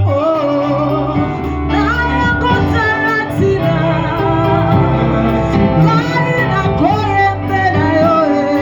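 Church worship music: a singing voice carries a gliding melody over band accompaniment with sustained bass notes.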